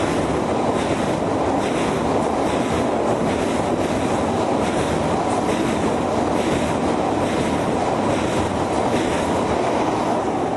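Electric multiple-unit passenger train passing close by: a loud, steady rush of wheels on rail, with faint regular clicks as the wheels cross rail joints.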